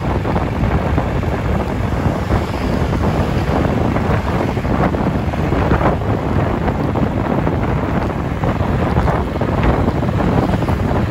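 Wind buffeting the microphone: a steady, loud rushing noise with a heavy low rumble.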